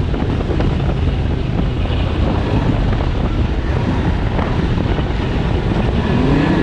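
Snowmobile engine running during a ride, with heavy wind buffeting the microphone. Near the end a short rising tone, as the engine revs up.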